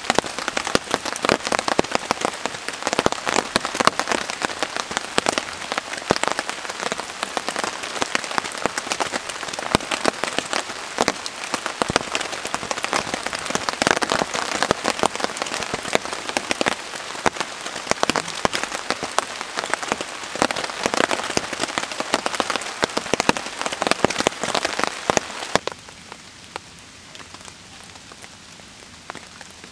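Steady rain falling on a tarp overhead: a dense, even hiss of countless drop hits. About four seconds before the end the sound cuts to a much quieter level.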